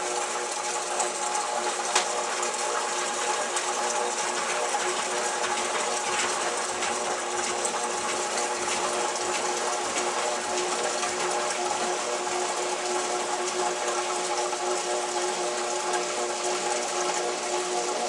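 Kenmore Series 500 top-load high-efficiency washing machine running a Normal Wash cycle with its lid closed: a steady motor hum with a water hiss, and one sharp click about two seconds in.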